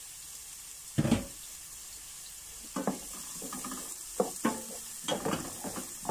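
Chopped onions frying in olive oil in a nonstick frying pan, with a steady faint sizzle. A wooden spoon knocks and scrapes against the pan in irregular strokes from about three seconds in as the onions are stirred. There is one louder single knock about a second in.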